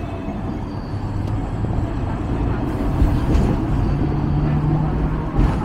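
Hong Kong double-decker tram running, a steady low rumble with a faint motor hum. Two knocks come through, about three seconds in and near the end.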